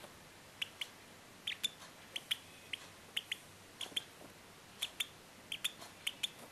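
Two-week-old lovebird chick peeping: short, high peeps, often in pairs, about two or three a second.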